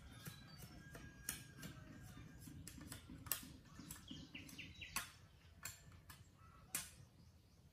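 Faint, sharp clacks of bamboo poles being handled and knocked together, scattered irregularly a second or two apart, with birds chirping in the background.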